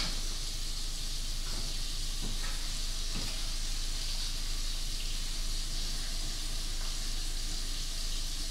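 A steady hiss with a few faint, short knocks.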